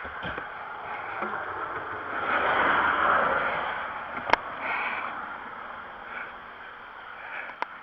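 A vehicle passes close by on the highway. Its road noise swells to a peak about three seconds in and then fades away. Two sharp clicks follow, one near the middle and one near the end.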